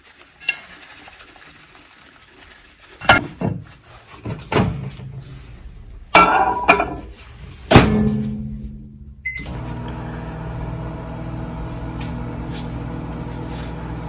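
Clunks and knocks as a plate is set into a microwave oven and its door is shut, the loudest near the middle. A short beep follows, and then the oven runs with a steady hum.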